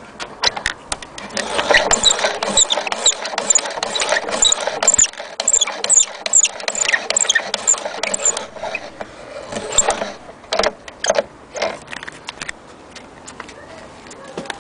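Antique gramophone's spring motor being wound with its side crank handle: rapid mechanical clicking and scraping with a high squeak repeating two or three times a second, thinning to a few scattered clicks near the end.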